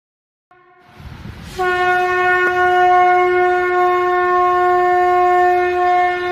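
Conch shell (shankha) blown: a short note about half a second in, a breathy build-up, then one long, steady, loud note from about a second and a half in.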